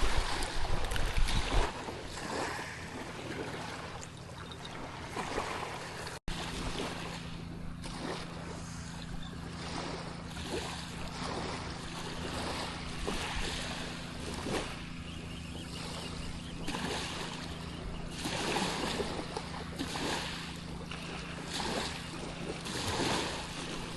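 Seawater washing and lapping against shoreline rocks, with wind buffeting the microphone for the first second or so. After a brief dropout about six seconds in, a steady low hum runs underneath.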